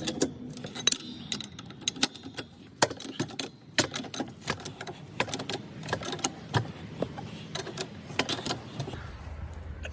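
Irregular metallic clicks and clinks of a car jack and hand tools being worked while a car is raised at its jacking point.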